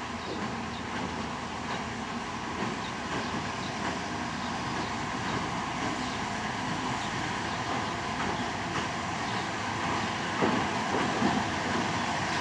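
Narrow-gauge train hauled by a TU2 diesel locomotive crossing a steel truss bridge: the diesel engine running and the wheels rumbling on the bridge, slowly growing louder, with a few sharp wheel clicks about ten seconds in.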